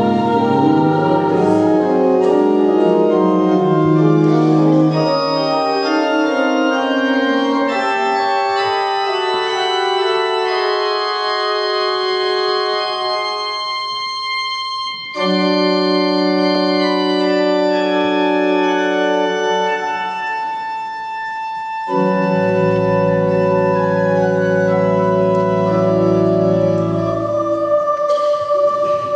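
Church organ playing slow, sustained chords, the harmony shifting every few seconds with a brief break about halfway through; a deep bass comes in about two-thirds of the way through.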